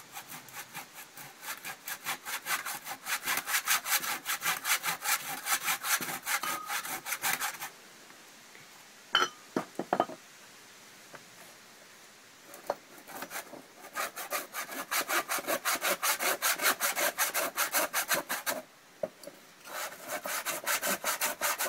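Hand saw cutting through a frozen butcher's bone in quick, even back-and-forth strokes, in three bouts separated by short pauses. A few sharp knocks fall in the first pause, about nine to ten seconds in.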